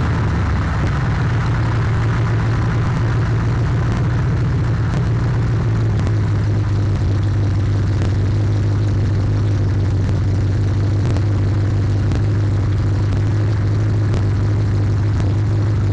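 The recording car's own engine and exhaust running loud and steady while driving, heard from inside the car as a low, even drone, the loud sound slightly distorting the recording.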